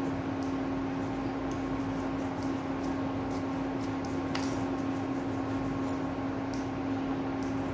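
Steady machine hum: a constant low tone with a fainter higher tone over an even hiss, and a faint click or two.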